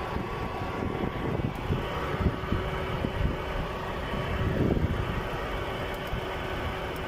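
Car engine running unevenly, with irregular low pulses and a few stronger surges between about two and five seconds in: rough running of the kind the video's title lists, such as a rough idle or misfire.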